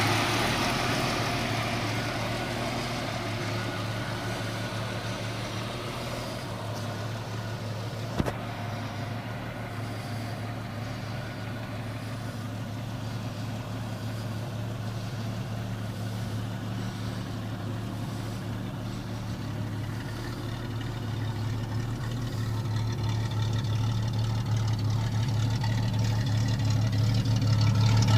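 Jeep Cherokee XJ engine running with a steady low hum. It gets quieter over the first several seconds and louder again toward the end, with one sharp knock about eight seconds in.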